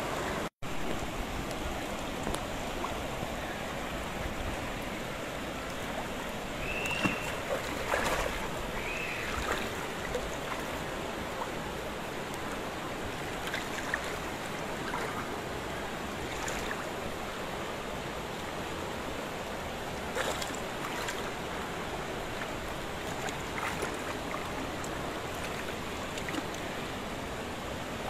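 Steady rain falling on a car, heard from inside the car, with a few brief squeaks and rubs of a cloth and hands on the wet windshield glass, twice about seven and nine seconds in.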